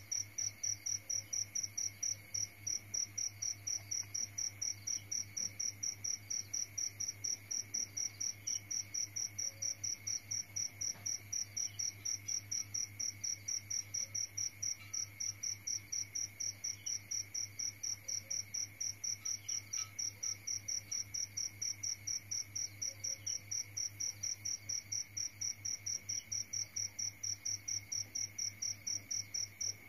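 A cricket chirping steadily in an even, fast rhythm of high chirps, with a faint low hum underneath.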